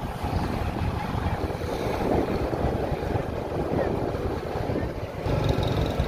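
Road traffic noise from cars and motorcycles on a city street, with wind rumbling on the microphone.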